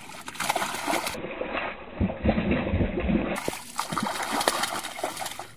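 A hooked rohu thrashing and splashing repeatedly at the surface of the pond as it is played on a bent rod.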